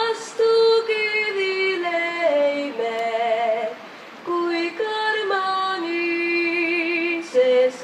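A woman singing an Estonian folk song unaccompanied, moving in steps between held notes, some with vibrato, with a short breath pause about four seconds in.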